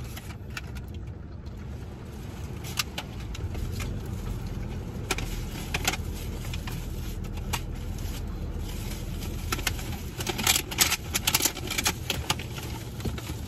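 Iced drink sipped through a plastic straw, with ice and plastic clicking and rattling in the cup and a cluster of louder slurps and rattles about ten to twelve seconds in, over a steady low rumble inside a car's cabin.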